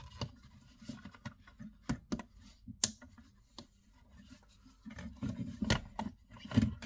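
Irregular clicks, taps and light scrapes of hands working a wall socket faceplate and its cables into the back box, with one sharper click a little under three seconds in and busier handling near the end.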